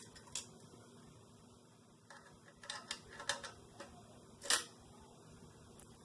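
Light metallic clicks and ticks of an adjustable wrench turning a small hex standoff out of a monitor's metal board bracket. The clicks come singly and in a short cluster, with one sharper click about four and a half seconds in.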